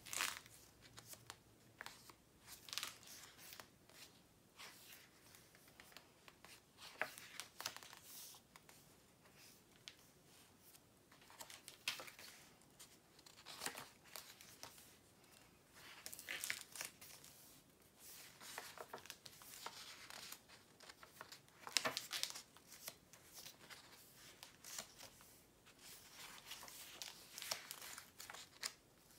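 Paper pages of a journal, thick with pasted-in tickets, labels and banknotes, being turned by hand. They make short, crisp rustling swishes and crinkles every couple of seconds.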